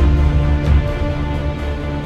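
Background music with sustained tones over a deep bass line and a faint steady beat.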